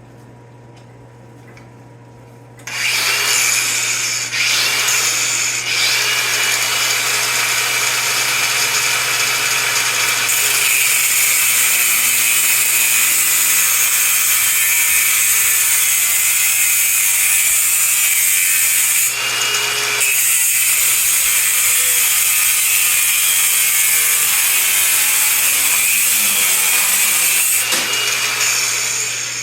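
Power tool cutting through steel pipe: a loud, steady hissing cut with a constant whine. It starts about three seconds in, breaks off briefly a few times, and stops near the end.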